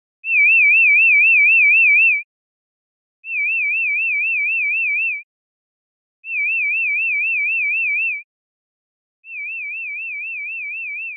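Hearing-test warble tone: a high pitch wavering quickly up and down, played four times for about two seconds each with a second's gap between. The first is the loudest and the last the quietest.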